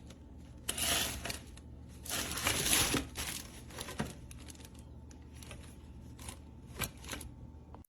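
Handling noise: plastic packaging rustling and crinkling in two spells, then a few light clicks, as the welder's cables and accessories are handled.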